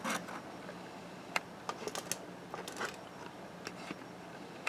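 Faint, light clicks and taps at irregular moments, about ten in all, over a low steady hum: small handling noises.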